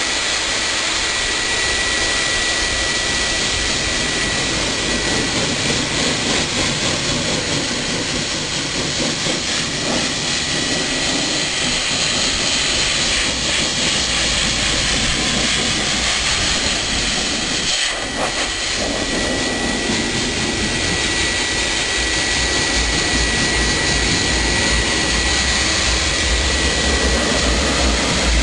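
High-velocity dog blaster dryer running steadily: a loud rush of blown air with a thin, steady high whine. The low rumble grows stronger in the second half.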